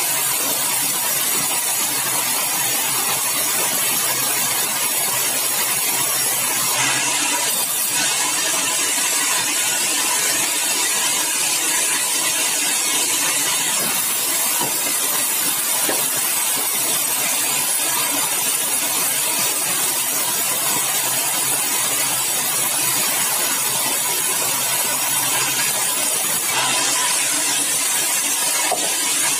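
Sawmill saw cutting yellow balau (bengkirai) timber: a loud, steady hissing run of sawing with slight changes about seven seconds in and near the end.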